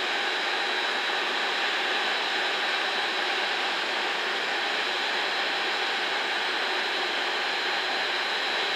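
Steady, even hiss with a faint high tone in it, unchanging throughout.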